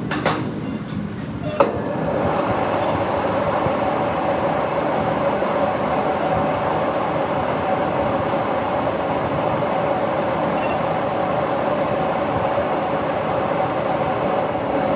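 Metal lathe running steadily with a constant whine over a noisy machine hum, after two sharp clicks in the first two seconds.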